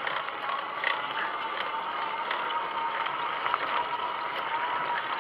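Fat-tyre e-bike under pedal assist going uphill on a dirt track: a steady whine from the 750 W motor over the clicking and rattling of a dry chain that needs lubrication.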